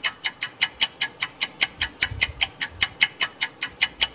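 Ticking-clock sound effect of a quiz countdown timer, with sharp, even ticks at about five a second.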